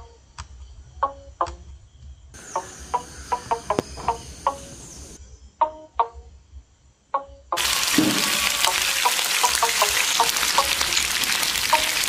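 Soft background music of short, quickly fading notes. About seven and a half seconds in, a loud sizzle starts suddenly: chicken pieces frying in hot sunflower oil in a pan.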